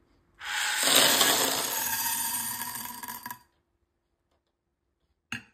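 Small beads pouring into a drinking glass, a continuous clinking clatter of many beads against glass that lasts about three seconds and stops abruptly, followed by a single short click near the end.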